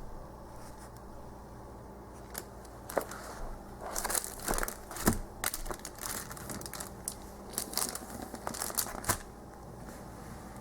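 Paper and packaging crinkling and rustling as they are handled, in a run of short crackles starting about two seconds in.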